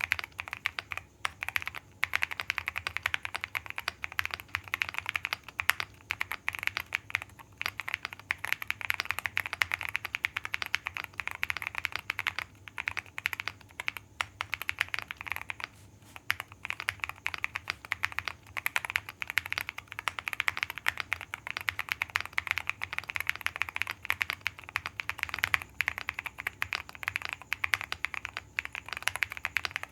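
Fast, continuous typing on a QK100 custom mechanical keyboard fitted with lubed Boba U4T tactile switches on a polycarbonate plate, with lubed stabilisers. The keystrokes click in a rapid stream, broken by brief pauses about a second in and around fourteen and sixteen seconds in.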